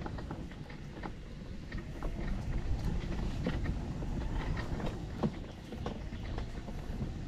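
Power wheelchair wheels rolling over a dirt and gravel path: a steady low rumble with scattered small clicks and crunches.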